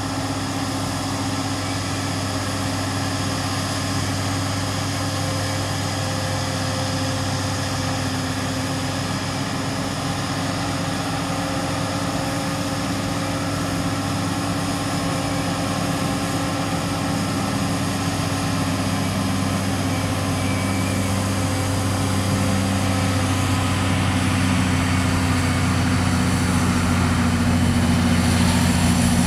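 John Deere 8800i self-propelled forage harvester working at full load chopping wholecrop rye: a steady heavy drone of its engine and chopping and blowing drum, with a John Deere tractor's engine pulling the silage trailer alongside. The sound grows slowly louder near the end as the tractor draws closer.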